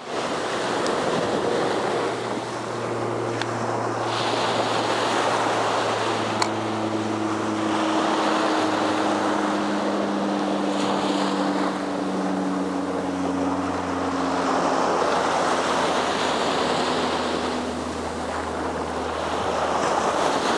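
Small waves breaking and washing up a sandy beach, swelling and easing every few seconds, with wind buffeting the microphone. Under the surf runs a faint low hum that slowly falls in pitch, and there is a single sharp click about six seconds in.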